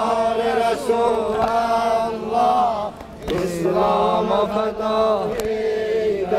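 Voices chanting an Azerbaijani-language devotional hymn to Imam Ali, drawing out long sung notes in two phrases with a short break about three seconds in.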